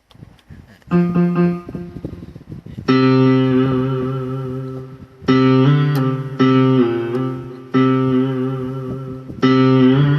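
Roland SK-88 Pro keyboard synthesizer being played through its Sound Canvas tone generator. A quick run of short notes comes about a second in, then several held notes or chords are struck one after another, each ringing and slowly fading.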